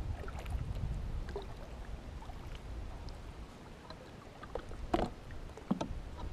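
Kayak paddling: light splashes and drips from the paddle strokes, with a sharp knock about five seconds in and a few lighter ones near the end.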